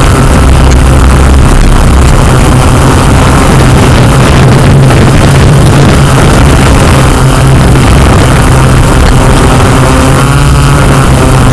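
Multirotor camera drone's motors and propellers running steadily: a loud, unbroken hum with a low steady tone.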